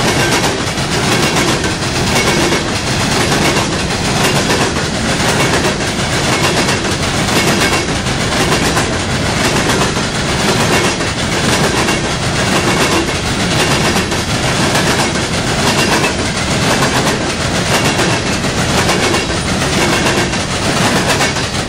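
Coal train hopper cars rolling past close by: a loud, steady rumble and rush of steel wheels on rail, with regular clicks as the wheel sets pass.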